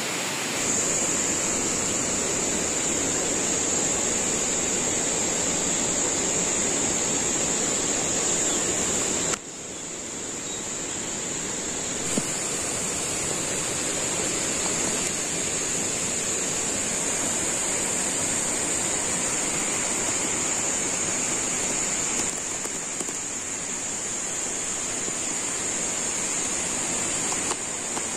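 Flowing stream water rushing steadily, with a steady high-pitched drone over it. The sound drops suddenly about nine seconds in and builds back up.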